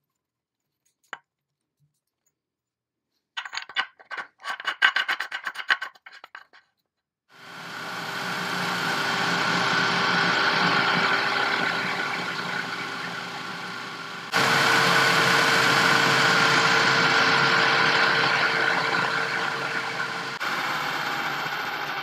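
A few clattering knocks of parts being handled, then a power tool running steadily with a noisy grinding sound and a steady hum. The hum jumps up in pitch partway through and the sound changes again near the end.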